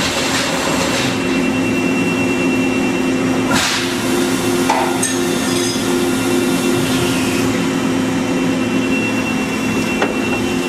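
Bystronic Bystar 3015 CNC laser cutting machine running with a steady hum of two low tones and a thin high whine as its shuttle table cycles out, with a sharp click about three and a half seconds in.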